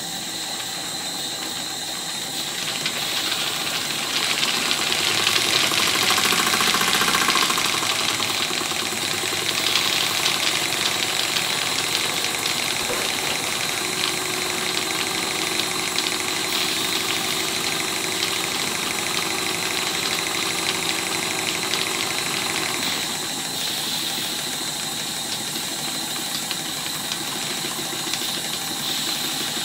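Stuart 10H single-cylinder horizontal model steam engine running fast and steadily, a rapid even beat of exhaust and motion over a steady hiss of steam. It grows a little louder a few seconds in.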